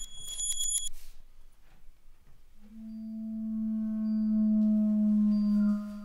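A brief shimmer of high, bright tinkling tones, then a low sustained ringing tone with higher overtones that swells over a couple of seconds and drops away sharply near the end, in the manner of a singing bowl.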